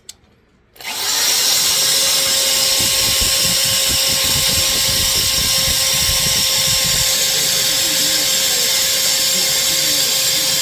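A power tool switches on about a second in and runs steadily at one speed, a loud even noise with a constant whine.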